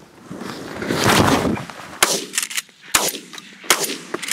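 A volley of shotgun blasts from several goose hunters firing at a flock over the decoys, several sharp shots close together starting about two seconds in, after a loud rush of noise about a second in.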